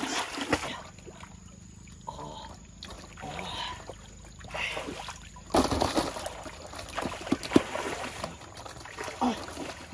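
Muddy water splashing and sloshing as a person wades through a shallow pool and gropes in it by hand for fish. The splashing is quieter for the first few seconds and livelier from about halfway on.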